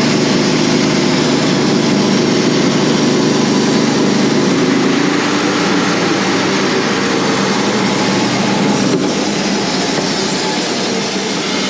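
Wood-Mizer LT35 portable band sawmill running steadily, its engine under load as the band blade saws through a white oak log.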